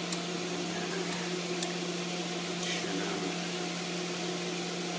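Steady electric motor hum from a Hayward H350FDN gas pool heater and its pool equipment during start-up, with a few light clicks in the first three seconds.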